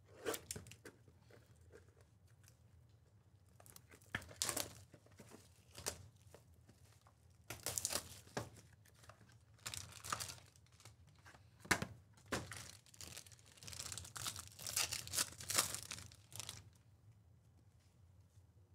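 A sealed trading-card hobby box and its packaging being torn open, with plastic wrapper tearing and crinkling in scattered short bursts and a longer run about three quarters of the way through.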